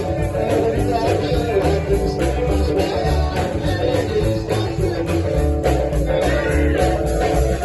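Live rock and roll band playing: guitar over a bass line and a steady drum beat.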